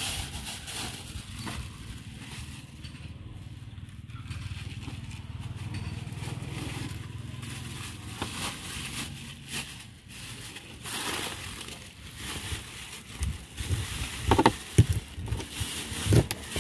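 Knife cutting a kingfish (seer fish) on a wet table, ending in a cluster of crunching knocks as the blade chops through the fish into steaks. A steady low hum runs underneath for the first part.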